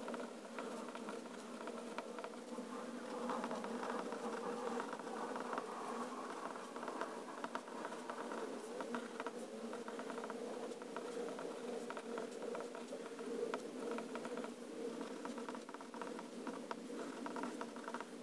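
Extra-fine fountain pen nib of a Pilot Penmanship scratching across Rhodia dot-pad paper as a line of cursive is written, a continuous scratchy rasp with many small ticks from the strokes.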